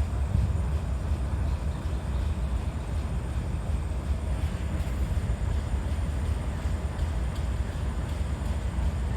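TGM6-series diesel-hydraulic shunting locomotive running, a steady low rumble with no change in pitch.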